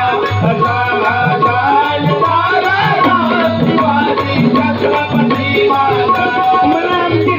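Live Indian devotional folk music: a hand drum keeps a steady, repeating beat, small hand cymbals clink in time, and a melody line rises and falls over them.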